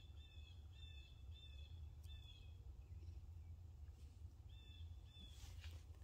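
A bird calling faintly in the open: a run of short, evenly repeated call notes, about two a second, that stops about two and a half seconds in and starts again near the end. A low steady rumble lies underneath, and a brief rustle comes just before the end.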